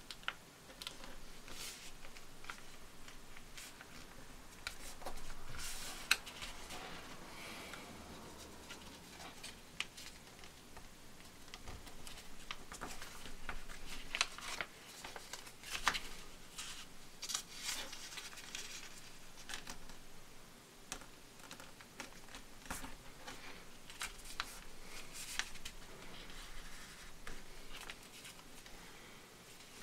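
A sheet of paper being folded and creased by hand on a cutting mat: irregular rustles and crinkles, with short sharp taps as fingers press the folds flat.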